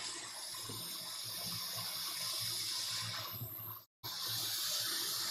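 Steady airflow hiss of a hot-air rework station blowing over a laptop GPU's red underfill glue to soften it. The hiss cuts out briefly about four seconds in and then resumes.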